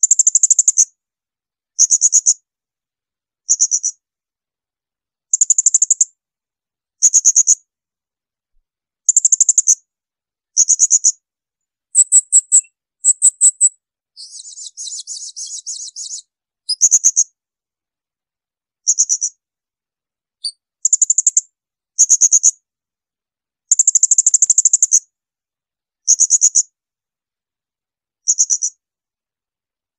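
Blue-crowned hanging parrot (serindit) giving its shrill, piercing 'tembakan' calls: about sixteen short, very high bursts every second or two with silence between them. A softer buzzy call lasting about two seconds comes near the middle.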